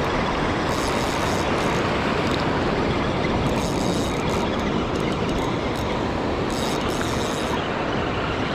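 Surf washing up the beach and wind on the microphone, a steady, even noise.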